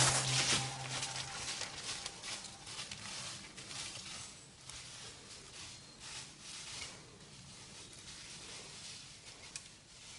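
Running footsteps crunching through dry fallen leaves, irregular and growing steadily fainter as the runner moves away.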